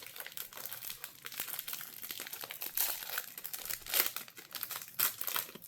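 Foil wrapper of a Topps baseball card pack being torn open and crinkled, a run of dense crackles with louder crinkles about three, four and five seconds in.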